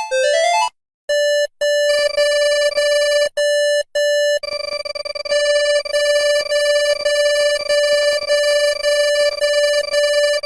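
Electronic emergency-alert tones: a synthesized arpeggio jingle stops about half a second in, and after a short gap come two short beeps and then a steady, buzzy alert tone that from about four seconds in pulses at roughly three beats a second.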